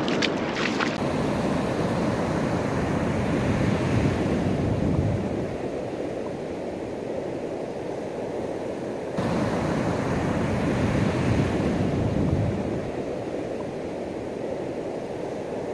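Ocean surf washing on the beach with wind buffeting the microphone: a steady rushing noise that swells and eases.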